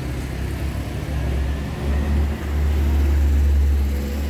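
A motor vehicle passing on the road: a low rumble that swells about halfway through.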